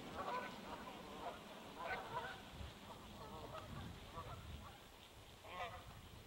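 A flock of Canada geese honking faintly in repeated bursts of calls as they take flight.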